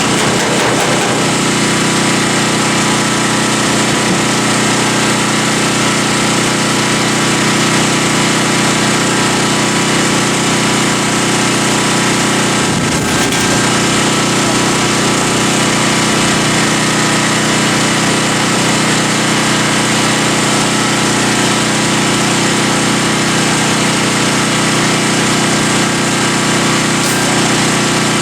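Handheld grinder running continuously on the hood's sheet metal, a steady whine with a grinding hiss, briefly faltering about thirteen seconds in.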